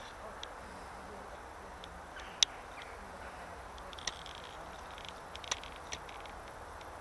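Outdoor garden ambience: a steady low rush with scattered short, high ticks and chirps, the sharpest about two and a half seconds in and a few more between four and six seconds.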